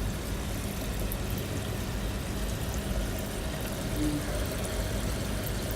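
Water flowing steadily down an aquarium's Durso standpipe drain into the sump, with a faint steady hum from the Moray 2300 return pump. The drain runs quietly because of the filter mat packed into the drain pipe, which damps the gurgling caused by the pump pushing more water than the drain needs.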